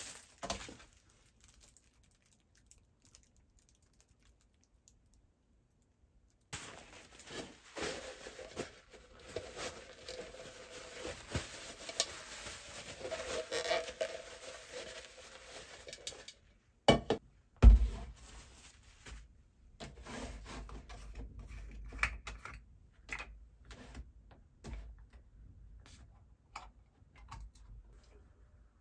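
Several seconds of near silence, then plastic wrap crinkling and rustling for about ten seconds as it is peeled off a Greek yogurt maker's metal spring and strainer parts. This is followed by one sharp thump and scattered light clicks and taps of plastic parts being handled and set down on the counter.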